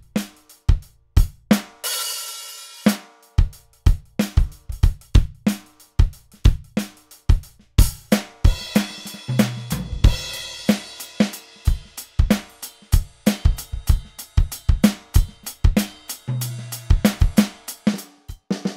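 ATV aDrums Artist electronic drum kit played with its 'Metal 9000' preset sounds: a steady kick-and-snare groove with a cymbal crash about two seconds in, then busier playing with crashes and low tom hits from about eight seconds on.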